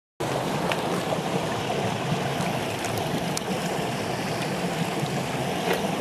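Shallow creek water rushing over rocks and boulders: a steady, even rush with a few small splashes.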